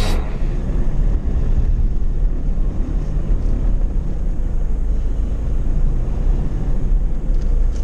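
A 4x4 vehicle driving, its engine and tyres giving a steady low rumble with wind buffeting the microphone.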